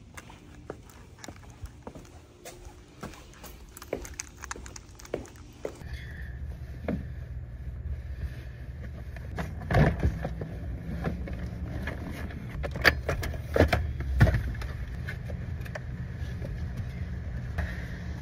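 Low steady rumble of a car heard from inside the cabin, with scattered clicks and a few loud knocks and thumps.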